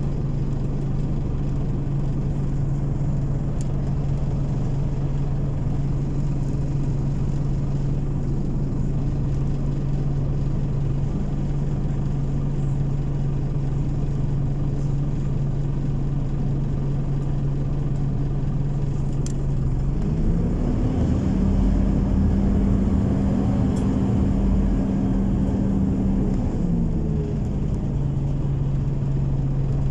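Scania OmniCity city bus's engine heard from inside the bus, idling steadily. About two-thirds of the way through, its revs rise as the bus pulls away, hold for several seconds, then drop back near the end.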